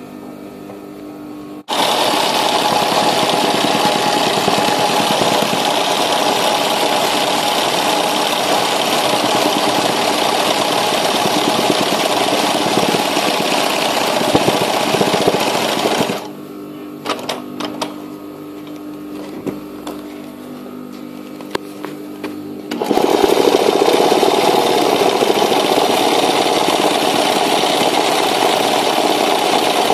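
Sewing machine running at speed for free-hand hoop embroidery, filling the design with satin stitches. It starts about two seconds in, stops at about sixteen seconds with a few light clicks, and starts again, a little louder, at about twenty-three seconds.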